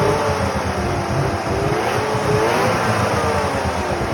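Yamaha Venture snowmobile's three-cylinder two-stroke engine being revved: the engine speed drops, picks up again about two seconds in, then falls away. It will only idle on two cylinders, which the owner blames on dirty carburettors.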